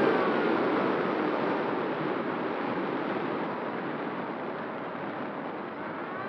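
Airflow rushing past the Esky Eagle RC plane's onboard camera as it glides low with the motor throttled back, the rush slowly fading. Just before the end, the electric motor's whine starts to rise again.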